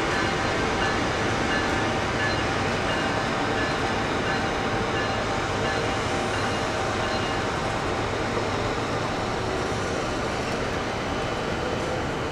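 A train rolling by on the tracks: a steady rumble of wheels on rail, easing slightly in level, with faint steady high tones over it that fade out about halfway through.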